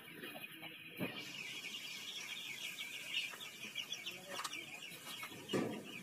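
A flock of young desi chicks cheeping without pause, many overlapping high peeps. A few knocks sound over them, with a louder thump shortly before the end.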